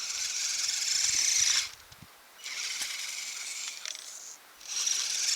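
Electric motor and gear drivetrain of an Axial SCX10 RC crawler whining in three spells of throttle with short pauses between, as it pushes wet, heavy snow with its plow.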